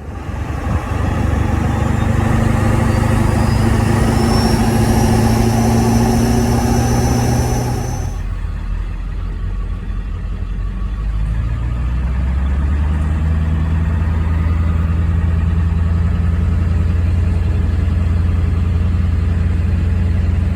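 Ford 7.3L Powerstroke V8 turbo-diesel running, with a high whine that climbs slowly in pitch. About eight seconds in, the whine and the engine's upper sound cut off suddenly, leaving a steady, deeper engine drone.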